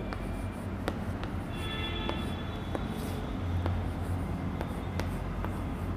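Chalk writing on a blackboard: a scatter of sharp taps and light scratches as the chalk strokes the board, over a steady low hum.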